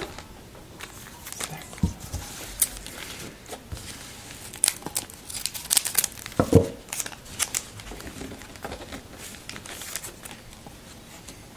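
Wrapper of a 2011 Donruss Elite football card pack being torn open and crinkled, in irregular rustles with a few sharper crackles, the busiest stretch about halfway through.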